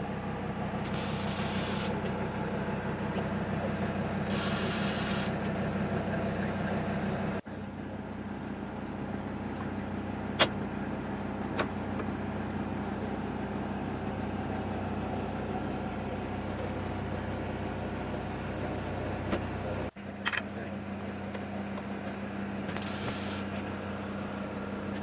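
A steady low electrical or machine hum, with three short bursts of hissing, like a spray or a blast of air, and two sharp clicks near the middle.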